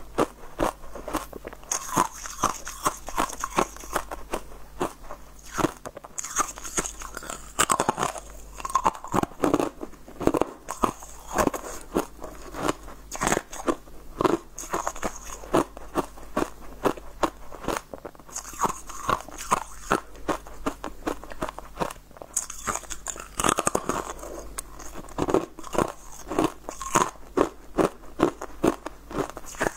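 Close-up crunching bites and chewing of corn kernels bitten off a cold corn cob, in quick clusters of crisp cracks, over and over.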